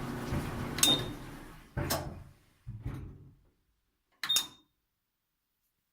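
GE dryer drive motor humming, then a sharp click about a second in, after which the hum dies away: the faulty motor relay drops out and the motor stops. A few light knocks follow, then one more sharp, ringing click.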